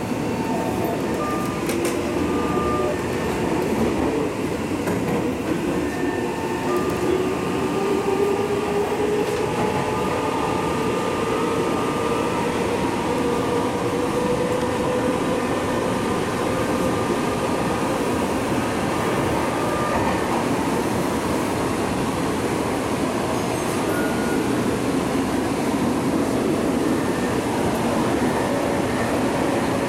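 Tokyo Metro Hibiya Line subway car heard from inside while running: a steady rumble of the train on the track, with a whine that rises slowly in pitch over about ten seconds and then fades.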